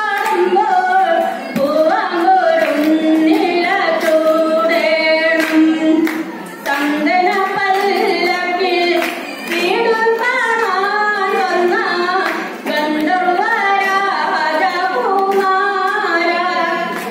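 A woman singing solo, amplified over a hall's loudspeakers: a slow, ornamented melody with long held notes, sung in phrases with short pauses for breath between them.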